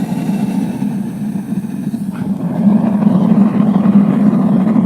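Homemade venturi gas burner, with a 0.9 mm MIG welder contact tip as its jet, roaring steadily as it fires a furnace. Its air choke is being worked: the roar drops back about a second in, then comes up louder again about halfway through.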